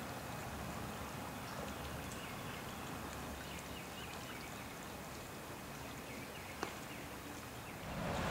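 Faint, steady outdoor background hiss along a creek, with scattered faint high bird chirps and one sharp click about two-thirds of the way through. Near the end the background swells louder.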